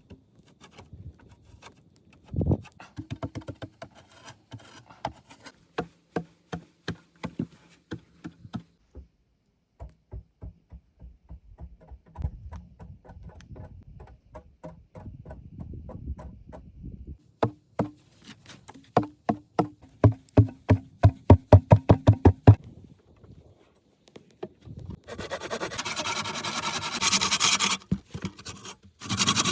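Hand work on wood: scattered knocks and taps, then a quick run of strikes at about four a second, then a long rasping scrape of wood on wood or a blade near the end.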